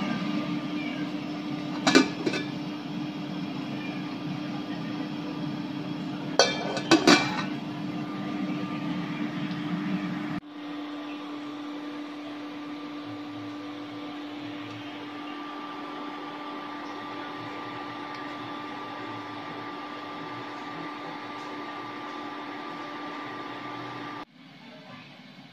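Metal utensils clinking sharply against cookware, once about two seconds in and in a quick cluster around seven seconds in, over a steady electrical hum with a hiss. About ten seconds in the hum drops to a quieter level and carries on steadily with no clinks.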